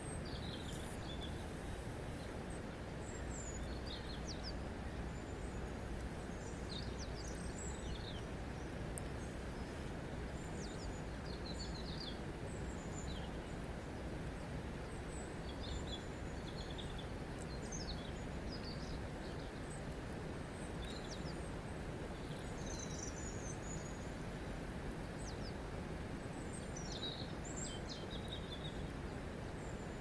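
Steady rush of river water flowing over stones, with small birds chirping and calling on and off throughout.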